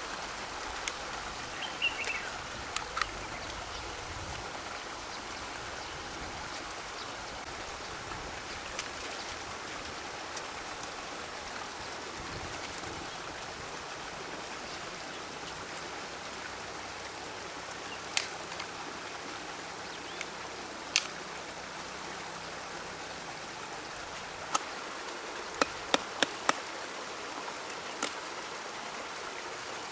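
River water running steadily, with scattered sharp clicks and knocks at irregular intervals, including four in quick succession near the end.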